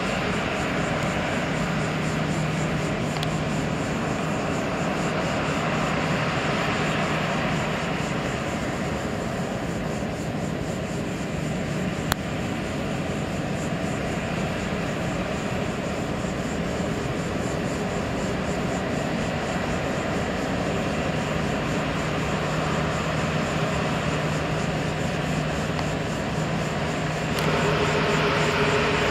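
Four-engine Airbus A340-600 jet engines running at low taxi power: a steady jet rumble and whine with a low hum. The sound grows louder near the end, when a new steady tone comes in.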